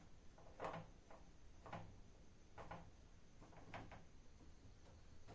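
Faint clicks, about one a second, each a quick double or triple tick.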